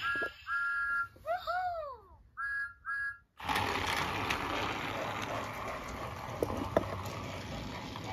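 Mattel All Engines Go Talking Percy toy train playing its electronic whistle effect through its small speaker: several short two-note peeps and a couple of toots that rise and fall in pitch. From about three and a half seconds in, a steady whirr of its battery motor and wheels running on plastic Trackmaster track, with a few light clicks.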